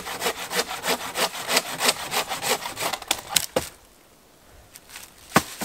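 Hand saw cutting through a wooden pole in quick, even back-and-forth strokes, stopping about three and a half seconds in. A few light knocks of wood follow, one sharper near the end.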